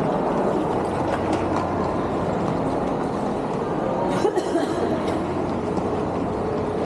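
Steady rumble and hiss of a vehicle in motion heard from inside, with a few light knocks about four seconds in.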